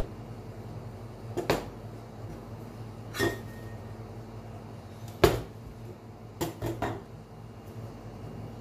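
Knife and chocolate bar knocking and clinking on a stainless steel cold-plate pan as the bar is set down and cut through: a few single knocks, one with a brief metallic ring, then three in quick succession, over a low steady hum.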